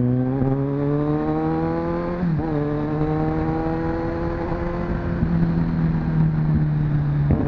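Kawasaki Ninja 1000's inline-four engine pulling under acceleration: its pitch climbs for about two seconds, drops at a gear change, then rises again more gently and levels off, with another brief shift near the end.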